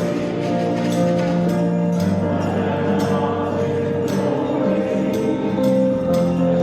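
Music with a steady beat, tambourine or jingle-like percussion strokes over held chords.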